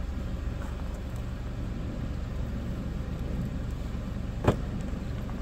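A steady low rumble, with one sharp knock about four and a half seconds in.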